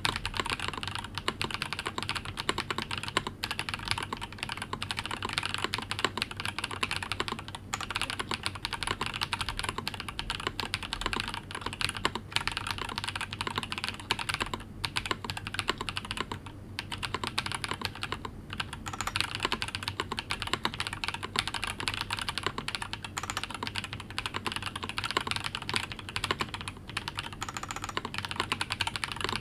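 Continuous fast typing on a mechanical keyboard with Zaku linear switches (PC top, nylon bottom) and Cherry-profile PBT doubleshot keycaps, a dense run of keystrokes broken by a few brief pauses.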